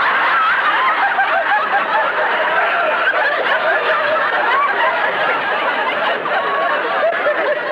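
Studio audience laughing at a punchline: one long, continuous laugh from many people at once, easing a little near the end.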